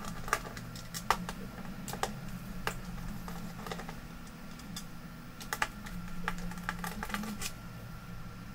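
Irregular light clicks and taps of a screwdriver, small screws and fingers on a monitor mainboard and its metal mounting frame, over a low steady hum.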